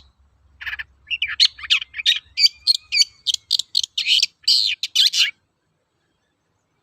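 Long-tailed shrike (cendet) singing: a quick run of short, harsh chattering notes with a brief thin whistle in the middle, stopping abruptly about two thirds of the way through.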